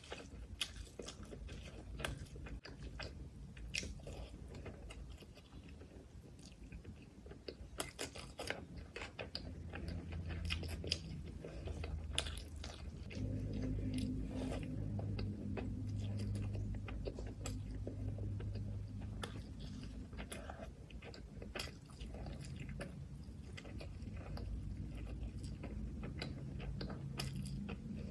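Chewing and wet mouth sounds of eating rice and mutton liver curry by hand, with many small sharp clicks and smacks. A low steady hum runs for several seconds around the middle.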